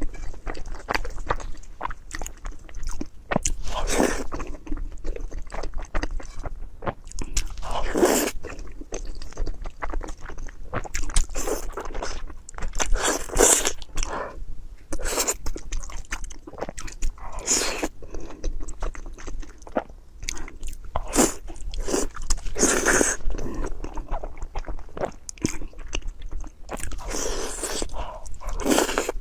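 Close-miked eating: irregular chewing and biting with crunchy, wet mouth clicks, and a few louder bites or slurps every four or five seconds.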